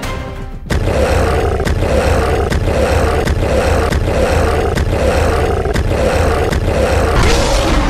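Dubbed-in gorilla roar sound effect, starting suddenly under a second in and pulsing with a sharp stroke about every 0.8 seconds.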